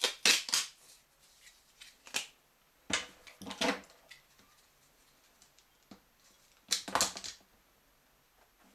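A rubber stroller tyre and plastic wheel rim being handled on a workbench: a few short bursts of scuffing and knocking, with quiet stretches between.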